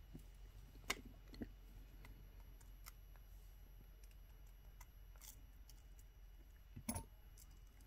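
Near silence broken by a few faint metal clicks of jewelry pliers working a small jump ring onto an earring wire.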